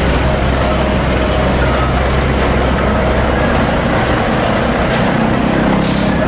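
Truck engine running steadily with road noise, at an even level throughout.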